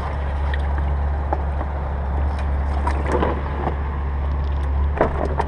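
A steady low engine hum, like a vehicle idling, with short rustles and clicks from a wet mesh weigh bag being handled and a faint voice about three seconds in.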